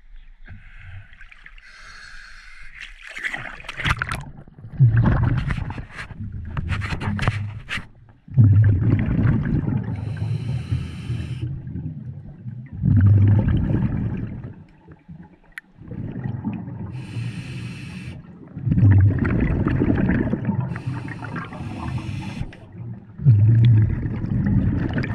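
Scuba diver breathing underwater through a regulator: a short hissing inhale, then a loud low bubbling exhale, repeating about every five seconds.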